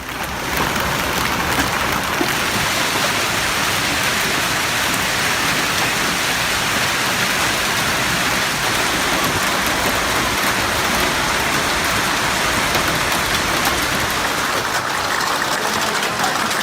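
Heavy storm downpour pelting steadily on surfaces, a dense, even hiss.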